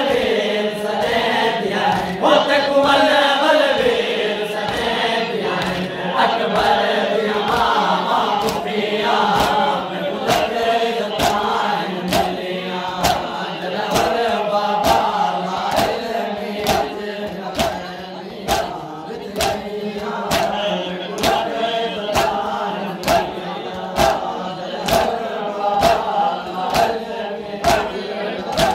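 Crowd of men chanting a noha, the Shia Muharram lament, in unison. Under the voices runs a steady beat of palm slaps on chests (matam), about two a second, which grows more distinct in the second half.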